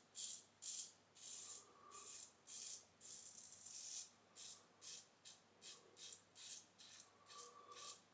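Safety razor blade cutting stubble through shaving lather in short repeated strokes, about two a second, each a crisp scratchy rasp with an even sound.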